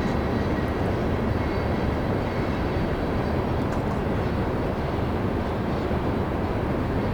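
Coal train rolling past, a steady rumble of its cars and wheels on the rails.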